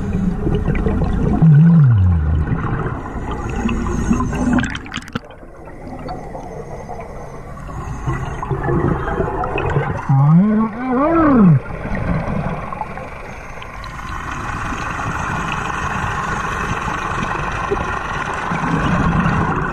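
Underwater recording of a compressor diver breathing out through his regulator, a steady rush and bubbling of exhaled air. Two short sliding tones cut through it, one falling about two seconds in and one rising then falling about eleven seconds in.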